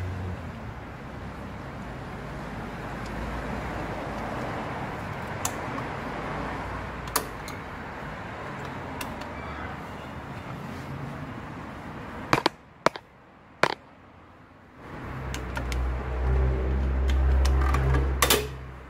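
Scattered sharp metallic clicks and taps from the Kia Bongo III's rear drum brake shoes and springs being handled on the backing plate, over a steady background hiss. Near the end a loud low rumble sets in.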